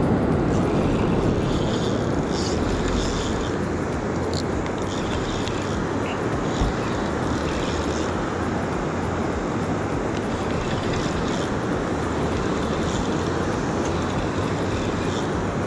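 Steady rushing wash of ocean surf, with no breaks or distinct impacts.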